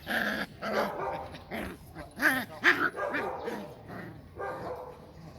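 Dogs barking and yipping in a run of short calls, the loudest two a little past two seconds in.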